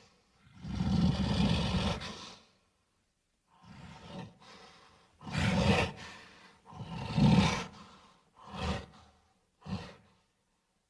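Sound-effect roars and grunts of a large monster or giant ape, one after another with short pauses: a long, loud roar about a second in, then five shorter calls.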